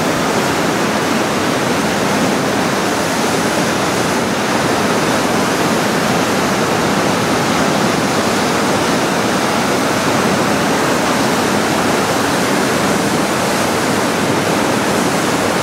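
Crystal Rapid on the Colorado River, a large whitewater rapid, rushing loudly and steadily as its big waves break, with no let-up.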